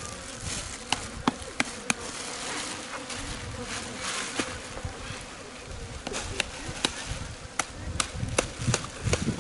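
Flies buzzing around a freshly butchered deer carcass, a faint steady hum, with scattered sharp clicks and snaps from knife work on the ribs.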